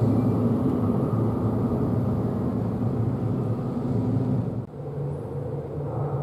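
Keihan electric train pulling out and running off into the tunnel, a steady low rumble. About four and a half seconds in, it cuts off abruptly to a quieter, steady low hum.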